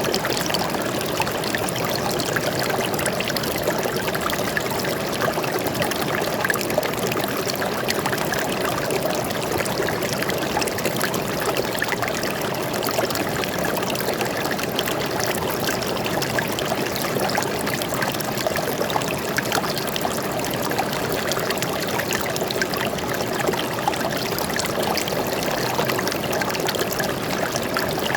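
Stream water flowing steadily, a continuous, even trickling rush with no breaks.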